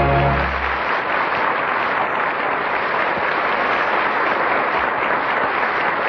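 Studio audience applauding steadily. A held music chord cuts off within the first second.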